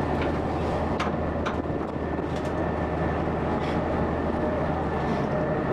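Small passenger ferry under way, its engine running with a steady low hum beneath a constant rushing noise, with a faint steady whine and a few light ticks.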